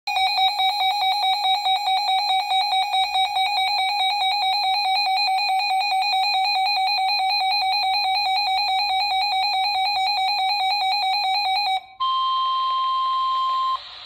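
Weather radio alert alarm beeping in a rapid pulsing pattern for about twelve seconds, signalling a received High Wind Warning. After a short break the broadcast's steady 1050 Hz NOAA warning alarm tone sounds for about two seconds and cuts off, just before the spoken warning.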